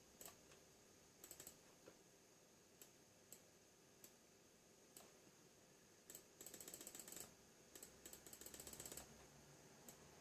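Faint clicking of a computer keyboard and mouse: scattered single clicks, then two quick runs of rapid clicks in the second half.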